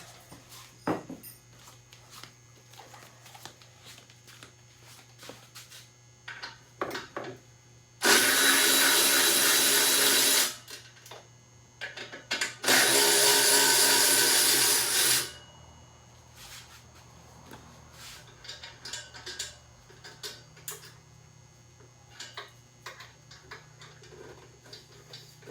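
A handheld power tool runs in two steady bursts of about two and a half seconds each, a couple of seconds apart, with light clicks and knocks of tools and parts around them.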